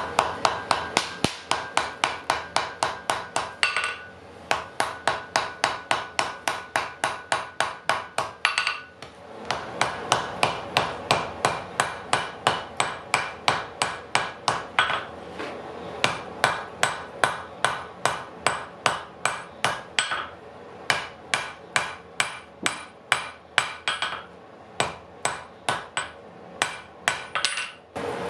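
Blacksmith's hand hammer striking a glowing billet of wrought iron and medium-carbon steel on the anvil, forge welding the two together. Steady blows about three a second, each with a short ring, come in runs broken by brief pauses.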